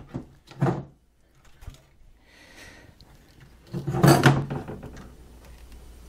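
Handling noise against the wooden dollhouse: a short knock, then a louder clunk with rubbing about four seconds in, as hands, solder and soldering iron are brought in to the wire joint.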